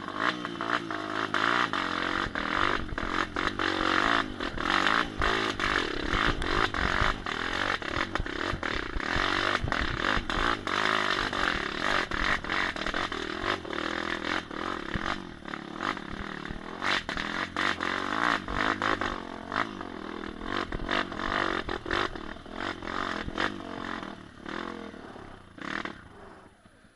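Dirt bike engine revving up and down under load while climbing a rough rocky trail, with frequent clattering knocks from the bike jolting over stones. The engine note drops away near the end.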